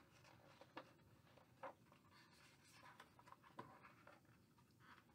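Near silence with a few faint paper rustles and taps as the pages of a hardcover picture book are turned and the book is handled.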